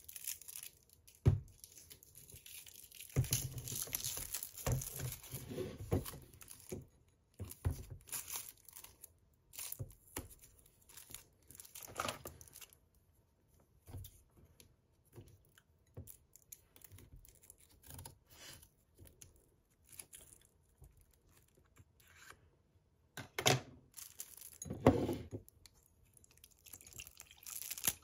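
Close handling sounds of a paper drink carton and a glass of ice cubes: scattered clicks, rustles and tearing as the carton is picked up and opened. The loudest are two short bursts near the end.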